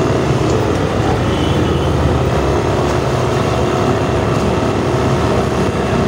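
Yamaha Mio Aerox 155 scooter's single-cylinder engine running at an even, steady pace while riding, heard with a constant low rumble of riding noise.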